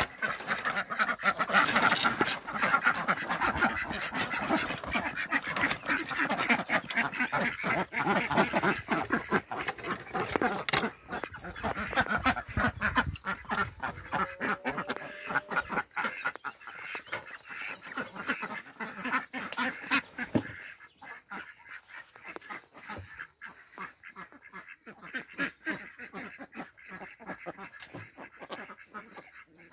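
Domestic ducks quacking continuously as a flock, loud and busy at first, then quieter and sparser from about halfway through.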